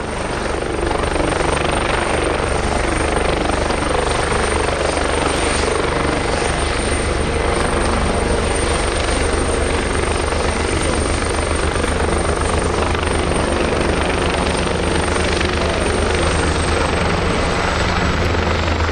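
Aircraft turbine engine running loud and steady: a thin high whine over a deep rumble. The whine drops slightly in pitch near the end.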